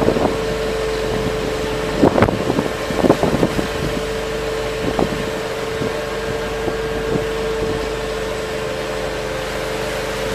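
Small hybrid electric boat under way in a choppy sea: a steady motor hum holding one unchanging tone, over wind and water noise. A few sharp knocks come between about two and five seconds in.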